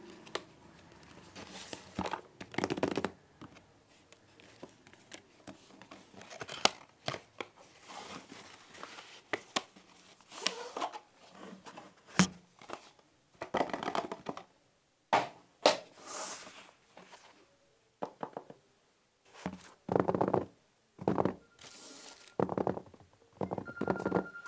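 Cardboard product packaging handled by hands: irregular rustling, tearing and scraping of the box and its paper sleeve, with sharp clicks and taps as pieces are set down on a wooden desk.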